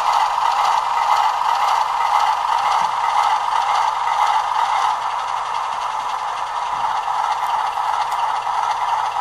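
Bachmann Sound Value HO-scale Alco RS-3 model locomotive's sound decoder playing a steady diesel engine running sound through its small onboard speaker. The engine sound is thin, with little low rumble, and some mechanical rattle of the model moving slowly along the track runs under it.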